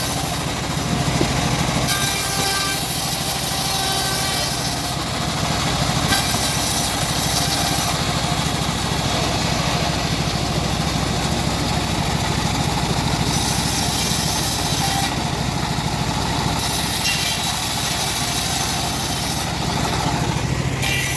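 Engine of a homemade bandsaw sawmill running steadily with a constant low hum.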